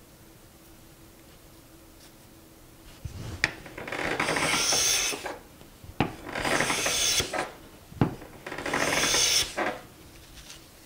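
Harbor Freight No 33 cast-iron bench plane, with its sole flattened and blade sharpened, taking fine shavings off the face of a poplar board in three push strokes starting about three seconds in. Each stroke opens with a sharp click as the blade bites, then runs as a rasping hiss for about a second and a half.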